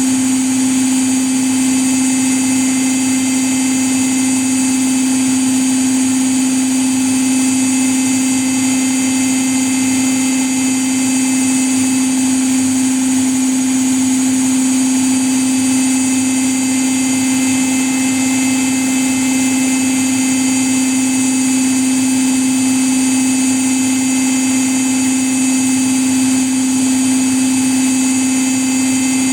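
Washing machine running at a steady, unchanging speed, its drum spinning with a constant motor hum and a high whine over a rushing noise.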